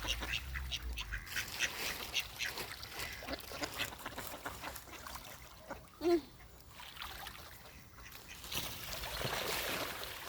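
Ducks quacking repeatedly while they feed at the water's edge, with one louder short call about six seconds in and some splashing of water near the end.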